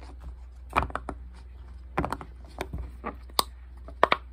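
Irregular light clicks and taps of small plastic fidget toys being handled and pressed.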